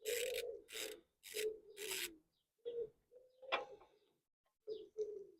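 Short rasping strokes, four in the first two seconds, then quieter scattered scrapes, as a hex key is worked against the tight fill plug of the Land Rover Discovery 3's front differential.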